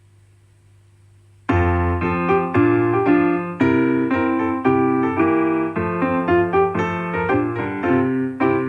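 Faint low hum for about a second and a half, then piano music starts suddenly: a steady run of chords that changes roughly every half second.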